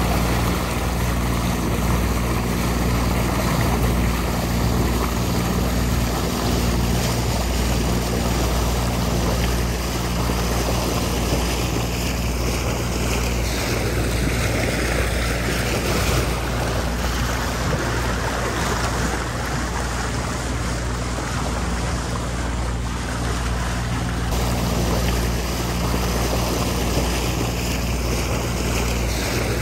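Ranger Tug R21EC motorboat underway: its engine running at a steady speed under a constant rush of water and wind.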